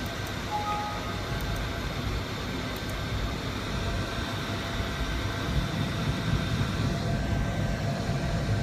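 Steady low background rumble, like a room's air-conditioning or machine hum, a little louder in the second half. Two brief faint beeps come about half a second and a second in, the second higher than the first.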